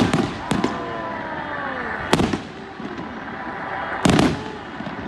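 Aerial fireworks shells bursting: four sharp bangs, at the start, about half a second in, about two seconds in and about four seconds in, with falling whistling tones after the first two.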